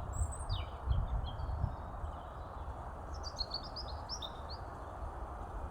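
Small birds chirping: a few short calls in the first couple of seconds and a quick run of notes about three to four and a half seconds in, over a steady outdoor background hiss with a low rumble.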